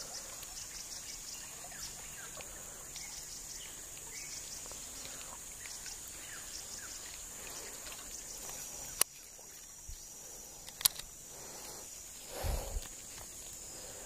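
Insects chirring in a steady high-pitched chorus, with two sharp clicks near the middle. About twelve seconds in, a brief low whoosh comes as the rod sweeps through a cast.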